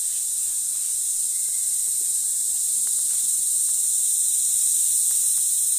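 Steady, high-pitched insect chorus that drones without a break, with a few faint clicks in the middle.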